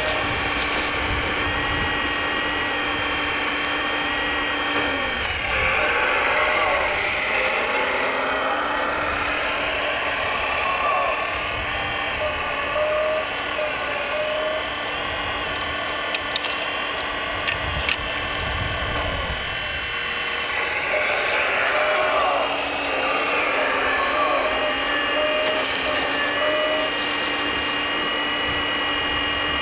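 Electric motors and hydraulic pumps of radio-controlled scale construction machines whining steadily, their pitches shifting as the machines work. There are a few sharp clicks about two-thirds of the way through.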